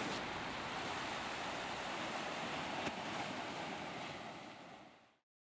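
Steady hiss of background noise, with a faint tick about three seconds in, fading out and ending in total silence about five seconds in.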